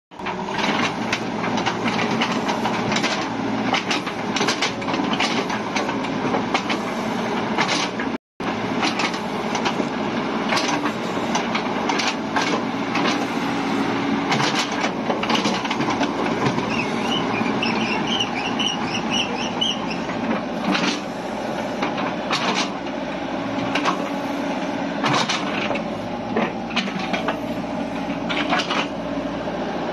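Caterpillar 306E2 mini excavator running, its diesel engine steady under frequent metal clanks and knocks as the boom and bucket work. The sound cuts out for a moment about eight seconds in.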